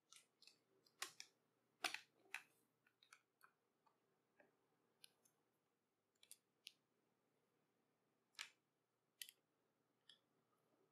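Faint, irregular small clicks and ticks of a precision screwdriver and fingers on a laptop's battery mounting screws and plastic chassis, thickest in the first few seconds and then scattered.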